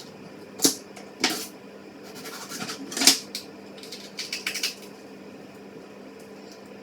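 Kitchen knife knocking on a cutting board while bell peppers are cut: a few sharp, irregular knocks and clicks over a faint steady hum.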